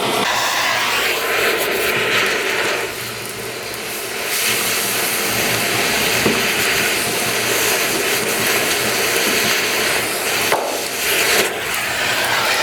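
Oxy-acetylene cutting torch hissing steadily as it cuts along a weld line in steel hull plate. The hiss dips a little about three seconds in and picks up again a second later.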